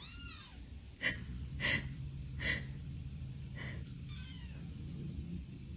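Kitten mewing in high, thin calls: a drawn-out rising-and-falling mew at the start, then several short, sharp squeaks less than a second apart, and another drawn-out mew a little past four seconds in.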